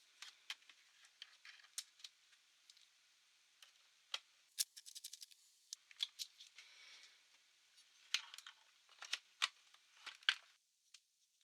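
Light clicks, taps and short scrapes of small plastic and metal laptop parts being handled, with a quick run of clicks about four and a half seconds in and a brief scrape about a second later.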